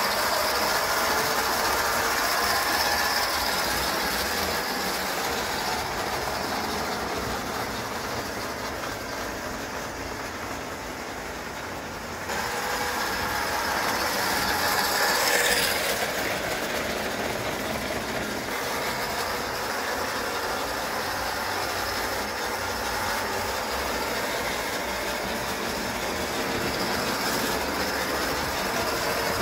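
Bing gauge 1 electric tinplate toy steam locomotive running with its coaches on tinplate track: a steady whir of the electric motor and gears with the wheels clattering on the rails. The sound grows fainter for a few seconds, then is abruptly louder again about twelve seconds in, with a brief sharp clack a few seconds later.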